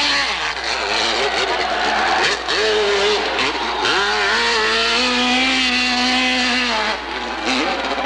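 Hillclimb dirt bike engine at high revs, climbing a steep dirt slope. The revs drop and pick back up about four times as the throttle is chopped and reopened, holding high and steady in between.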